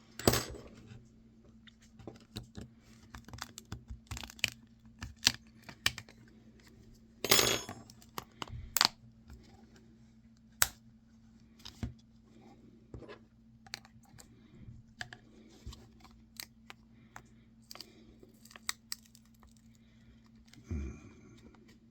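Small clicks, taps and clatter of cell phone parts being pried apart and dropped while dismantling phones by hand, with two louder clattering bursts, one right at the start and one about seven seconds in. A steady low hum runs underneath.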